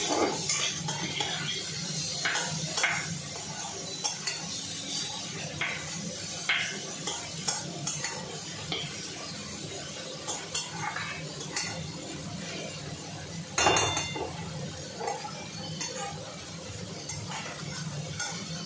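A metal spatula and spoon scraping and clinking against an aluminium kadai as food is stirred and turned, with one louder clank about three quarters of the way through. A frying sizzle and a steady low hum run underneath.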